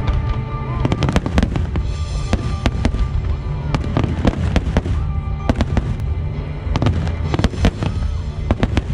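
Aerial fireworks shells bursting in rapid succession: many sharp bangs and crackles, some close together, over music with sustained tones.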